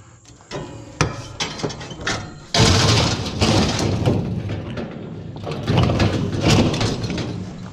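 Scrap metal being handled: a few knocks, then from about two and a half seconds in a loud, uneven scraping of metal dragged against metal for about five seconds.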